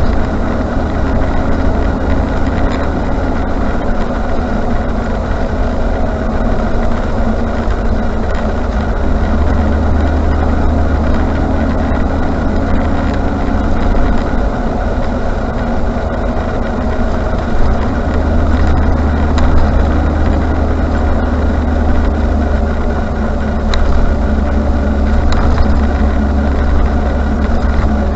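Range Rover Classic being driven: a steady engine and road rumble.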